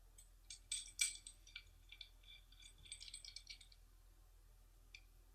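Faint small clicks and light rattles of compression-fitting parts being handled as the insert is pushed into the multi-layer pipe, in two loose clusters about a second in and around three seconds in.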